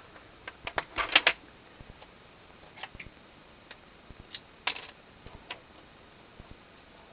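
Small plastic clicks and taps of hands handling a micro drone's camera module and parts, with a quick cluster of clicks about a second in and scattered single clicks after.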